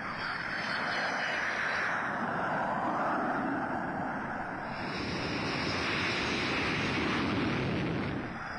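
Jet noise from Lightning Mark II interceptors' turbojet engines, a steady rushing sound that swells twice, once near the start and again in the second half.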